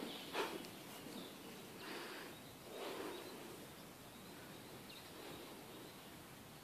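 Faint, muffled hoofbeats of a small pony running across the deep sand of a riding arena: a few soft thuds over steady low background noise.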